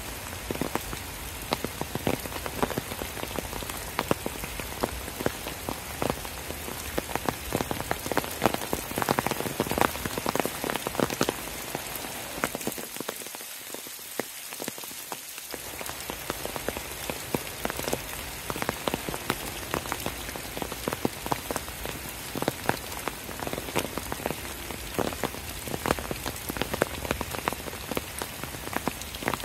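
Steady rain falling, with many sharp hits of individual drops.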